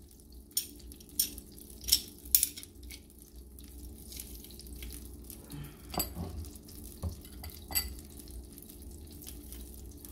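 Metal garlic press clicking as a garlic clove is squeezed: several sharp clicks in the first two and a half seconds, then a few more between about six and eight seconds in. Underneath, butter sizzles faintly in a frying pan.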